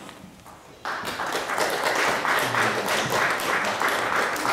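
Audience applause, starting suddenly about a second in and continuing steadily.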